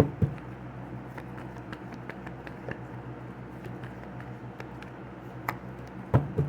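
Scattered light clicks and taps of hands handling small objects, with a couple of louder knocks right at the start and again just before the end, over a steady low hum.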